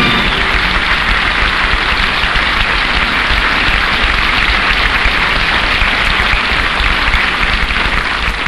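Studio audience applauding steadily at the end of a musical number.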